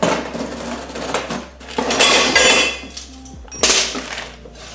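Cardboard box being cut open with a knife, then the metal mesh grill grate and loose metal parts clattering as they are pulled out, loudest about two seconds in and again near the end.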